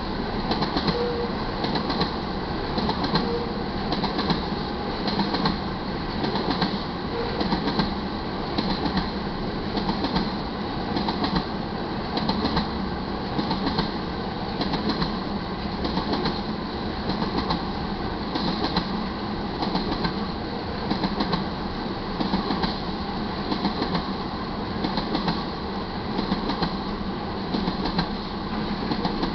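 Railroad tank cars of a BNSF crude-oil train rolling past at speed: a steady rumble with the wheels clattering in a regular rhythm over the rail joints.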